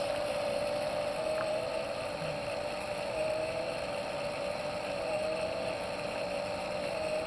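Motorized fire tornado rig running: a steady motor hum, its pitch wavering slightly, over the rushing noise of the spinning column of flame.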